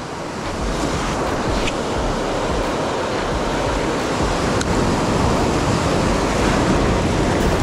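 Ocean surf breaking and washing up over the sand: a steady rush of waves.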